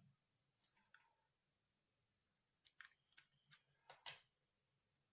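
Faint small clicks and taps of a metal SIM ejector pin being pushed into a Redmi phone's SIM tray hole, the sharpest about four seconds in. A faint steady high-pitched whine runs underneath.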